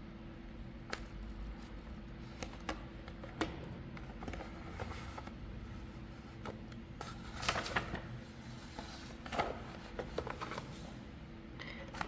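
Scattered taps and crinkling rustles of a grip tape sheet and its paper backing being handled and peeled, busiest in a few short clusters in the second half, over a faint steady hum.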